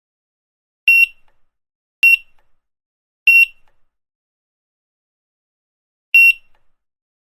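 Grocery checkout barcode scanner beeping four times at uneven intervals: short, high single-tone beeps, three in quick succession in the first few seconds, then one more near the end.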